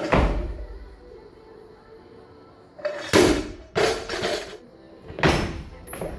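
Heavy thuds of a bumper-plated Olympic barbell and a lifter's feet on a gym platform: one near the start as the snatch is caught, a cluster of drops and bounces about three to four and a half seconds in, and another about five seconds in. Background music plays underneath.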